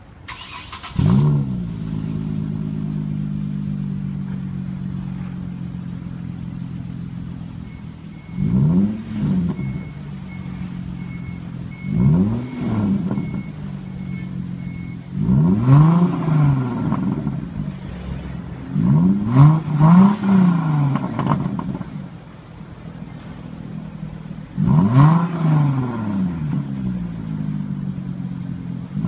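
2009 Hyundai Genesis sedan's engine and exhaust starting up about a second in after a brief crank, then idling steadily and getting a little quieter. It is blipped several times in short revs that rise and fall in pitch, two of them close together near the middle.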